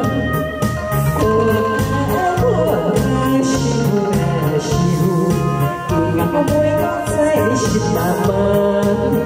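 A woman singing into a microphone over loud amplified backing music with a steady beat and held keyboard chords.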